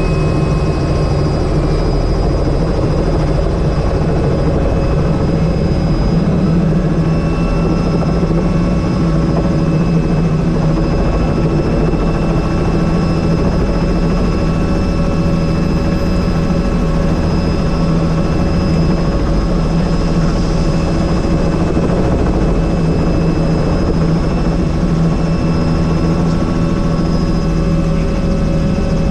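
Helicopter engine and rotor running: a loud, steady drone with several constant tones over it.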